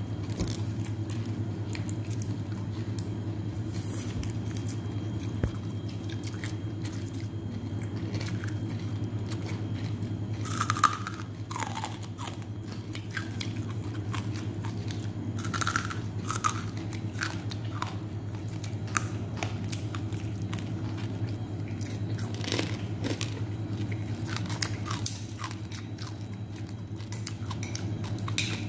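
Close-up chewing and crunching of papaya salad with crispy pork cracklings and raw vegetables, in irregular crackles with a few louder crunches, over a steady low hum.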